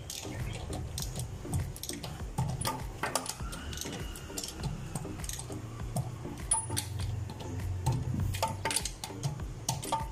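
Irregular metallic clicks and clinks of hand tools and hardware being handled at the wheel, over a steady low hum.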